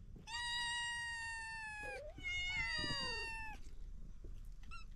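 Domestic cat meowing: two long, drawn-out meows, the first held nearly level and the second sliding down in pitch, then a few faint short chirps near the end.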